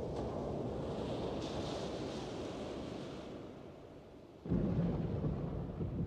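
A steady rush of wind-and-surf-like noise fades down, then about four and a half seconds in a sudden deep rumble breaks in, like thunder, and carries on.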